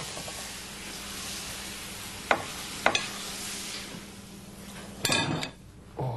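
Yorkshire pudding batter sizzling as it is ladled into smoking-hot sunflower oil in a pudding tin, a steady hiss that shows the oil is hot enough to start cooking the batter at once. Two light clicks come about two and a half and three seconds in, the hiss fades, and a brief louder clatter follows about five seconds in.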